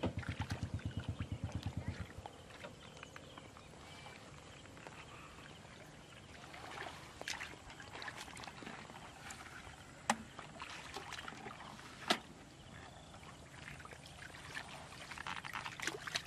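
Muddy water sloshing and splashing as a person wades and gropes by hand in a shallow stream, with grass rustling and two sharp snaps about ten and twelve seconds in. A low, rapid pulsing of about eight beats a second sounds for the first two seconds, then stops abruptly.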